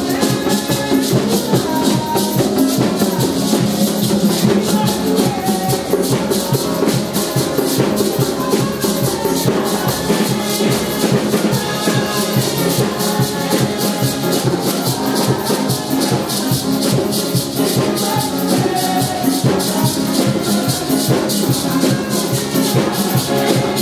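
Live gospel praise music: a group of singers over hand drums, drum kit and piano, with a fast, steady rattle in the high end keeping the beat.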